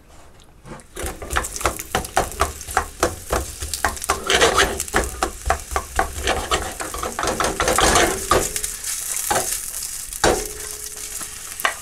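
Sliced onions sizzling in sunflower oil in a stainless steel frying pan over a gas flame. A spatula scrapes and clicks against the pan as they are stirred. The sizzle starts about a second in.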